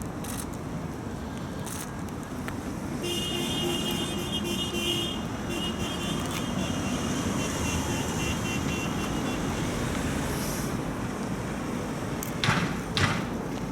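Street ambience of traffic and a gathered crowd, with a steady high tone, horn-like, sounding for several seconds from about three seconds in. Two sharp knocks near the end are the loudest sounds.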